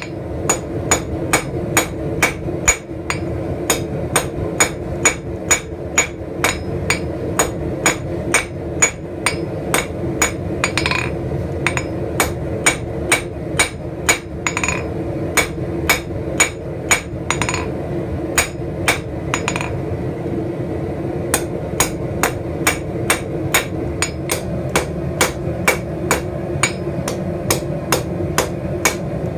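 Blacksmith's hammer striking hot steel on an anvil in a fast, regular rhythm of about two to three blows a second, forging out a leaf, with a short pause about twenty seconds in. A steady hum runs underneath.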